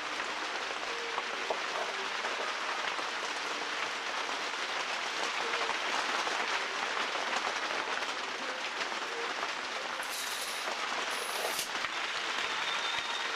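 Handheld corded power tool running steadily on a planked wooden rudder blank: a continuous hiss with no clear pitch.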